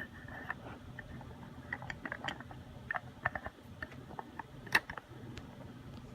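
Handling noise from a camera being moved and set in place: scattered small clicks, taps and rubs, with one sharper knock a little before five seconds in.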